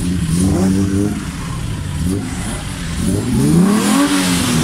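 Motor vehicle engine revving up and down, its pitch rising and falling several times, with the longest climb peaking near the end.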